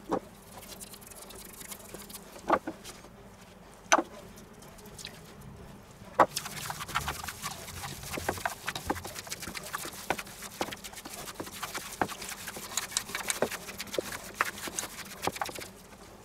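Gloved hands kneading seasoned minced meat in a stainless steel bowl: a few sharp knocks in the first four seconds, then about ten seconds of fast, steady squelching and slapping of the meat.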